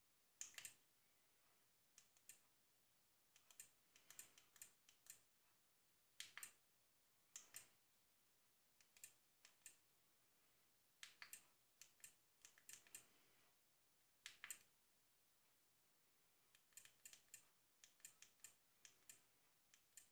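Small push buttons on a FuriBee 4K action camera clicking as they are pressed to step through its menus, in single clicks and quick runs of several, at irregular intervals.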